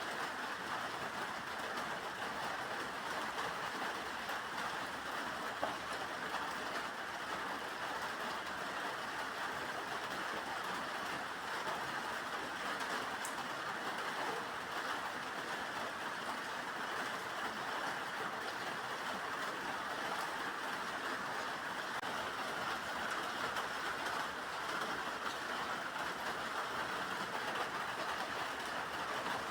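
Steady rain falling, an even, unbroken hiss with a faint tick now and then.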